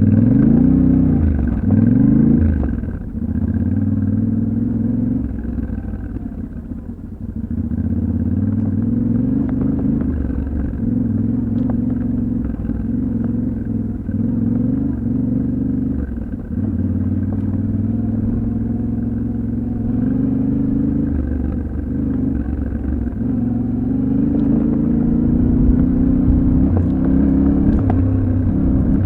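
Yamaha Ténéré 700's 689 cc parallel-twin engine riding along, its revs rising and falling with throttle and gear changes: two quick revs near the start, a lull about six to seven seconds in, then pulling fairly steadily with smaller swells.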